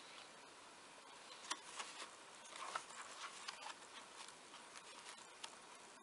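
Faint rustling and light taps of a stack of folded paper pages being handled and set down onto a grey cardboard binding, a few soft clicks scattered through.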